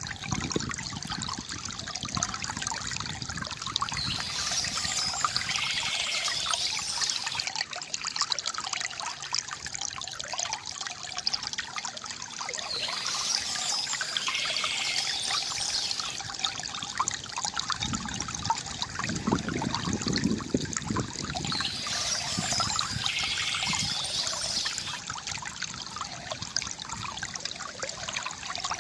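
Water from a bamboo fountain trickling and splashing steadily into a basin, with a brief deeper swell of splashing about two-thirds of the way through.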